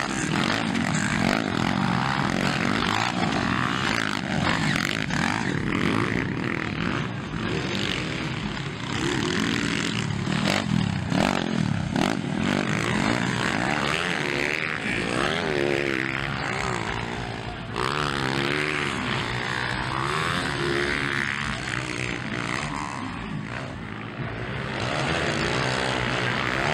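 Motocross dirt bike engines running hard, their pitch rising and falling over and over as the riders open and close the throttle and shift through the gears.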